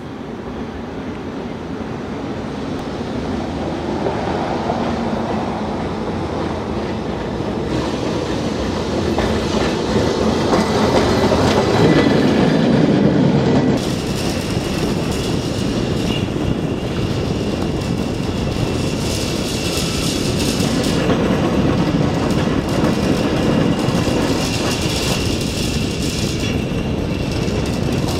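A 1919 Birney streetcar running along its track, its steel wheels rumbling on the rails. It grows steadily louder over the first twelve seconds or so as it approaches.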